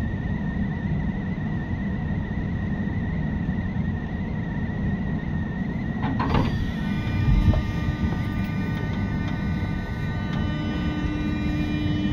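201 series chopper-controlled electric train running, heard from near its line breaker: a steady rumble with a steady, slightly wavering whistle. About six seconds in there is a clunk, after which several steady tones set in, and a louder low hum joins near the end.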